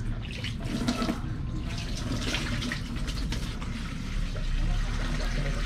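Water running from a garden hose nozzle into a plastic bucket, filling it, in a steady rush. A low rumble grows in underneath near the end.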